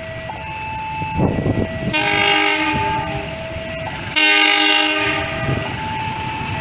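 Diesel locomotive horn sounding two chord blasts, the first about two seconds in and the second about four seconds in. Beneath them a level-crossing warning alarm alternates steadily between two tones, over the rumble of the passing train.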